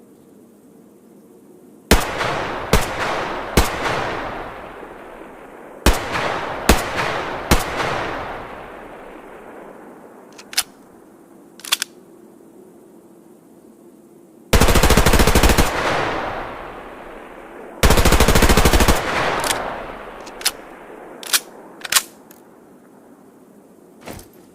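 H&K MP5 submachine gun firing: two groups of three single shots, then two automatic bursts of about a second and a half each, every shot trailing a long echo. Sharp clicks sound between the shots and near the end.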